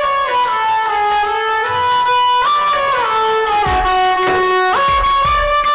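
Instrumental interlude of devotional kirtan music: a single sustained melody line that glides smoothly between notes, with low drum beats coming in about two-thirds of the way through.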